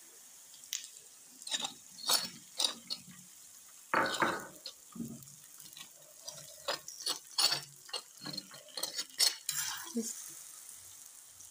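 Metal spatula scraping and clicking on a hot tawa (flat griddle) as beaten egg is spread over a paratha, in irregular strokes, over a light frying sizzle. The longest, loudest scrape comes about four seconds in.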